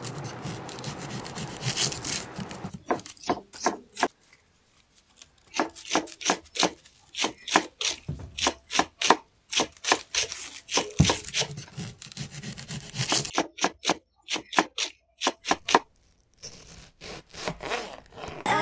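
Kitchen knife chopping vegetables on a plastic cutting board: long runs of quick, sharp taps with short pauses between, after a couple of seconds of softer rubbing and scraping.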